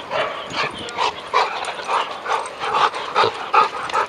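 A pack of dogs barking, with short overlapping barks coming several times a second.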